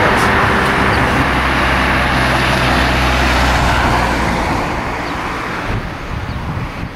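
Road traffic noise: a motor vehicle passing close by, its rumble and tyre noise loud at first and fading away over the last few seconds.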